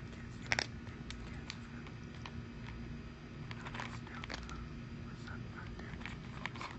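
A cat chewing its food: scattered small crunching clicks, one sharper about half a second in, over a steady low hum.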